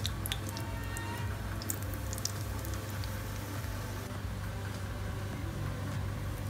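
Hot oil in a small pan on a gas stove for a chilli tadka, with faint crackles and ticks over a steady low hum.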